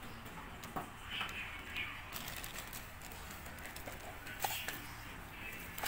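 Light handling noise: a few soft clicks and the crinkle of clear plastic as a cordless soldering iron and its packaging are moved about.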